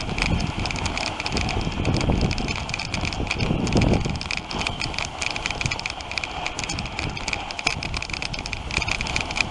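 Wooden dog sled running over snow: the runners hissing and scraping, with quick rattling clicks from the sled frame. Low gusts of wind on the microphone swell about two and four seconds in.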